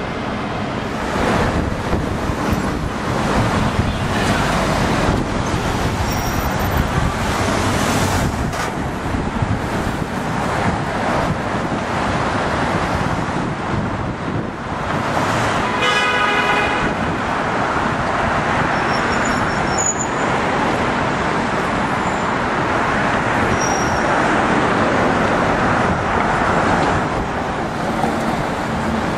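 City street traffic running steadily, with a vehicle horn tooting once about halfway through.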